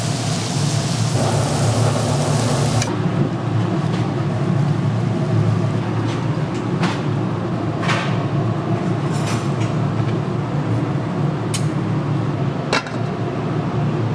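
Pork sizzling on a grill, a loud hiss that cuts off suddenly about three seconds in. A steady low hum follows, with scattered clinks and taps of metal utensils and dishes.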